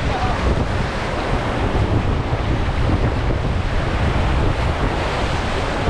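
Rushing river water around a raft, a steady, loud wash with wind rumbling on the camera microphone.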